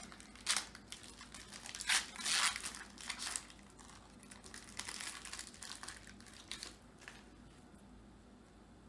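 Trading-card pack wrapper being torn open and crinkled by hand: a run of short rips and crinkles, loudest in the first three seconds, dying away about seven seconds in.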